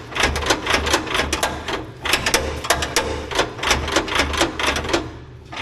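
Rapid, irregular metallic clicking and rattling from the dozer's pedal and control linkage being worked and lubricated, in quick runs with short breaks about two seconds in and near the end, over a low pulsing hum.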